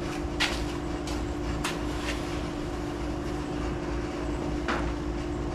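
A steady hum, with a few scattered light clicks and taps; about three-quarters of the way through, a metal screwdriver clicks against a carburetor as it is worked to press a snap ring into place.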